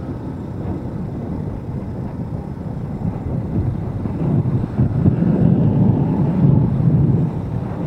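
Wind rushing over the microphone of a moving motorcycle, with the low rumble of the ride underneath, getting louder about halfway through.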